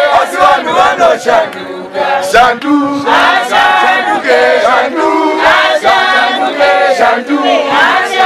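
A choir of men's and women's voices singing a church hymn together, a man's voice leading.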